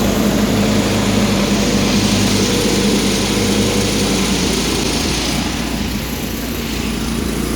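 Small garden tractor engine running steadily on choke, just after starting.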